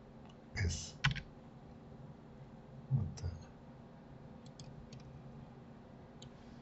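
Computer keyboard and mouse clicking a handful of times, scattered and irregular, over a faint steady hum.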